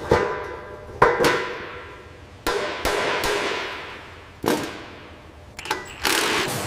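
A series of sharp metal clanks, each ringing and dying away, several in a few seconds. A rush of hissing noise follows two of them, about two and a half and six seconds in.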